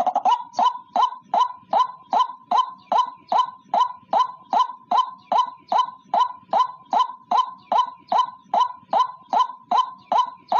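White-breasted waterhen (ruak-ruak) calling, a single bird's lure call: a short, sharp note repeated at an even pace, nearly three a second, with a brief quick rattle right at the start.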